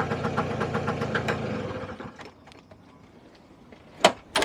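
Small scooter engine idling with a rapid, even beat, then switched off and running down about two seconds in. Near the end come two sharp knocks close together.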